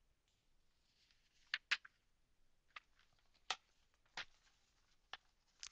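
Near silence, broken by about eight short clicks scattered through it, the loudest pair about one and a half seconds in.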